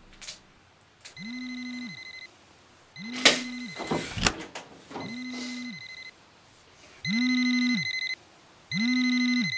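Samsung smartphone ringing with an incoming call: a repeating electronic ringtone, about one second of ring every two seconds, louder for the last two rings. Around the second ring, sharp clacks and rattling of a metal door lever being worked.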